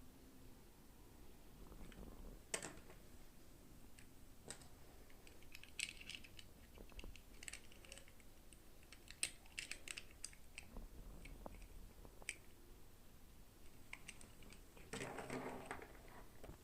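Quiet handling of small plastic toy pieces and packaging: scattered light clicks and taps, with short clusters of crisp clicks, and a brief rustle near the end.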